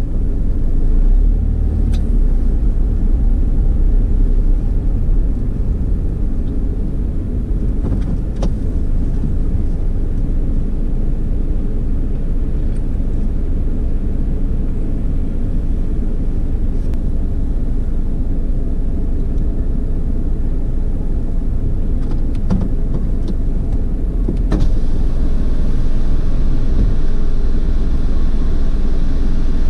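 Drive-through automatic car wash running over a vehicle: a steady low rumble, with a brighter hiss joining about 25 seconds in.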